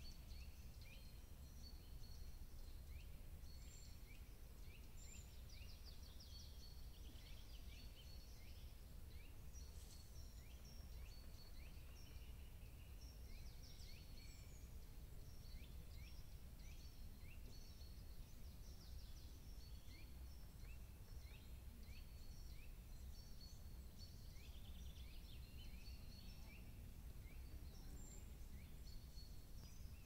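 Faint woodland birdsong in winter: many small songbirds calling, with short high chirps and trills coming one after another throughout. A low steady rumble runs underneath.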